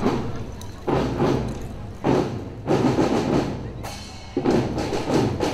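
Drums of a school marching band beating a marching rhythm, with a short lull about four seconds in.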